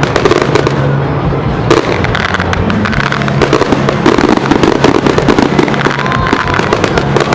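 Fireworks display going off continuously: a dense, rapid crackling and popping of bursting shells without a break.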